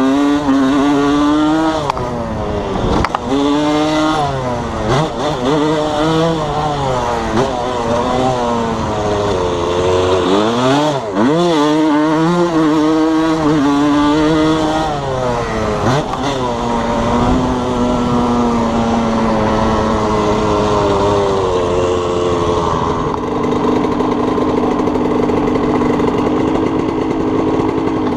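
1987 Suzuki RM125's two-stroke single-cylinder engine being ridden hard, revving up and dropping back again and again as the bike accelerates and shifts, then holding a steadier note near the end. The owner thinks a dent in the expansion pipe is robbing it of low-end pep.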